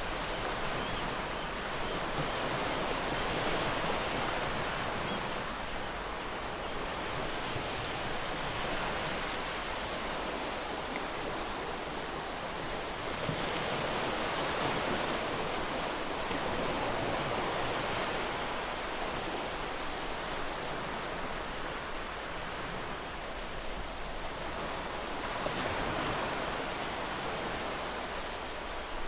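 Waterfall: a steady, dense rush of falling water that swells and eases slightly a few times.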